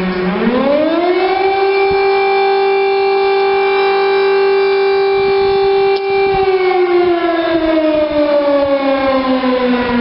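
French civil defence warning siren, a loud wail that climbs quickly in pitch about half a second in, holds one steady tone for about five seconds, then slowly falls for the rest of the time.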